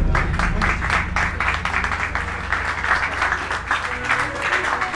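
A crowd clapping, with voices chattering under it.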